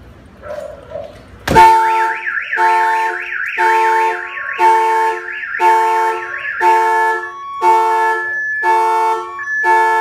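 Excalibur 1660 car alarm siren set off by a sharp knock on the car about one and a half seconds in. It plays a fast warbling wail over a pulsing tone that repeats about once a second, and switches to a stepped tone pattern about seven seconds in.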